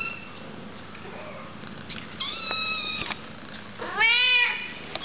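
Sphynx kittens meowing: a short high meow at the start, a long level meow about two seconds in, and the loudest, a meow that rises and falls in pitch, about four seconds in.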